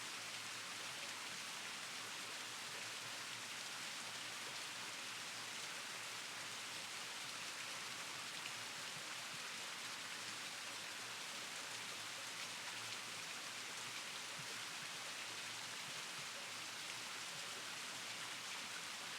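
Steady, even hiss with no distinct calls or knocks.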